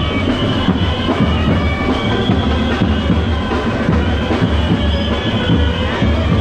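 Dhol drums of a procession band beating fast and loud, with a held, reedy high melody line above them.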